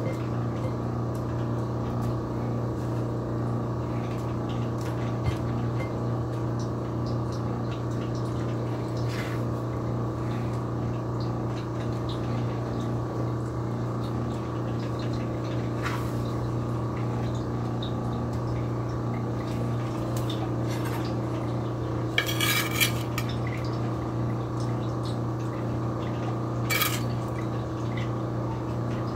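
A steady, unchanging hum like a running kitchen appliance or fan, with a few short clinks of kitchenware spread through.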